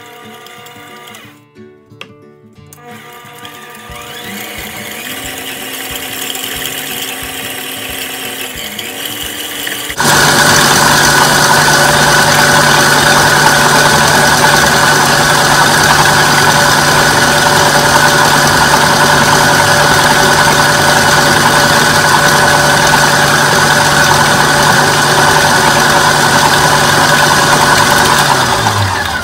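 Stand mixer beating cream cheese. It runs quietly for the first several seconds, then about ten seconds in is switched up to a loud, steady whir. Shortly before the end it is switched off and spins down with falling pitch.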